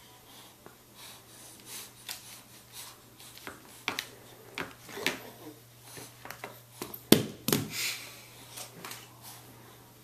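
A baby's short breathy sounds and small noises, mixed with scattered light knocks; the loudest two come about seven seconds in.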